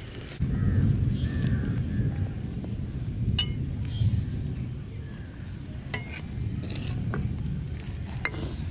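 Water with chopped vegetables bubbling in an iron kadai over a wood fire, stirred with a steel ladle, with a few sharp clicks of the ladle against the pan.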